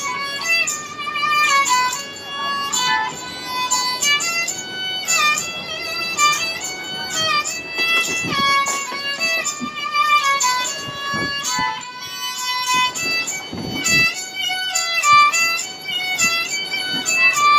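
Sarangi, a bowed folk fiddle, playing a lively melody of short phrases that step up and down in pitch, over low background noise.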